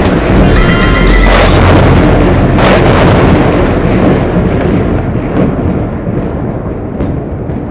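Dramatic music mixed with thunder-crash sound effects. Sharp cracks come about one and a half and two and a half seconds in over a rumbling wash, which then fades down over the last few seconds.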